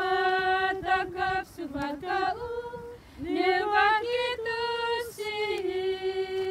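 A woman singing a hymn unaccompanied, holding long steady notes with a short wavering run in the middle.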